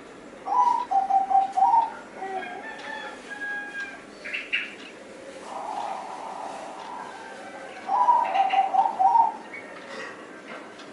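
Zebra dove (Bangkok perkutut) cooing. It gives two phrases of quick, stuttering coo notes, each about a second and a half long: one about half a second in and another about eight seconds in. Fainter, higher chirps of other birds come between the phrases.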